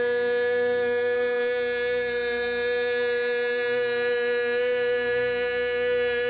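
Closing music: one steady held tone with many overtones, unchanging throughout.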